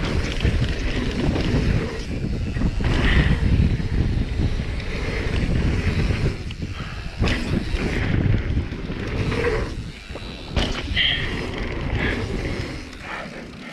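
Mountain bike riding fast down a dirt trail: wind buffeting the bike-mounted microphone, with tyre and chassis rattle over the dirt. A few sharp knocks come as it rides over the dirt jumps.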